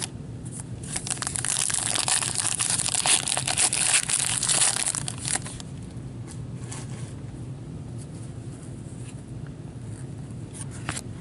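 A trading-card pack wrapper being torn open and crinkled for a few seconds, dense crackling with many small snaps. It is followed by quieter handling of the cards, with a few light taps and clicks.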